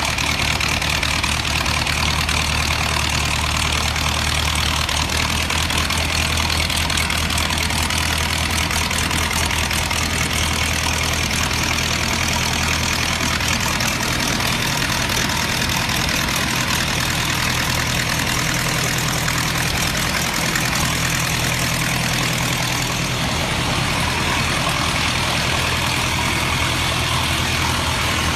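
Ford Model T four-cylinder engine idling at a steady speed.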